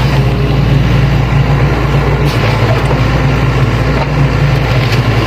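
Sany hydraulic excavator's diesel engine running steadily, a constant low drone.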